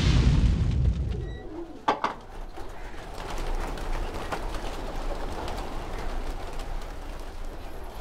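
Domestic pigeons cooing, with many faint scattered clicks. A loud rushing noise fades away over the first second, and a single short, sharp sound comes about two seconds in.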